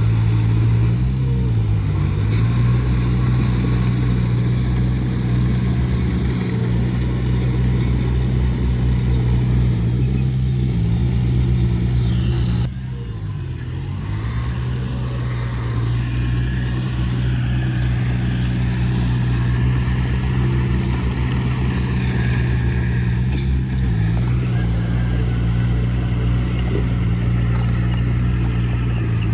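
Heavy diesel engine of earthmoving machinery running steadily, its pitch sagging briefly several times as it takes load. The loudness drops suddenly about halfway through, then builds back.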